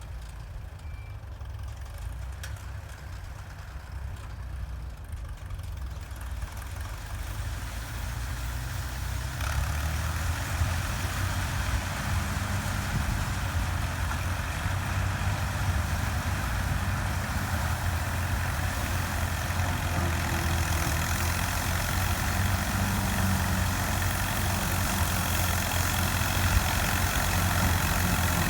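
Combine harvester running with its engine hum getting steadily louder. About ten seconds in, a broader machine noise joins as the combine is brought back up to speed after its slipping belt was tightened.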